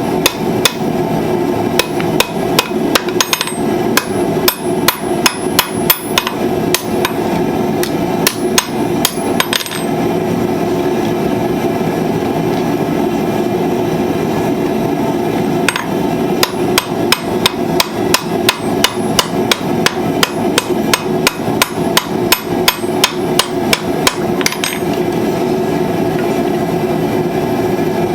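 Blacksmith's hand hammer striking steel on an anvil in quick runs of ringing blows while forging tongs, with a pause of several seconds midway. A steady rushing noise continues underneath.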